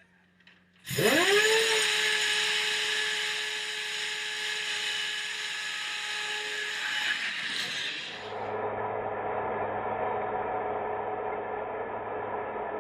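Phalanx CIWS mount's electric drive whining up about a second in: a sharp rise in pitch, then a steady high whine. About eight seconds in it gives way to a duller steady hum with a rushing noise.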